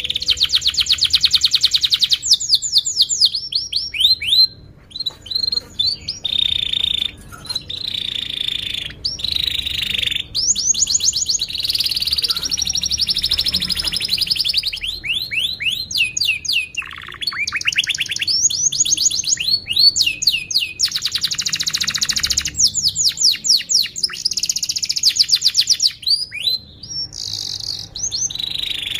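Domestic canary singing a long, continuous song: fast trills of rapidly repeated chirps and sweeping high notes, one phrase after another with only brief pauses.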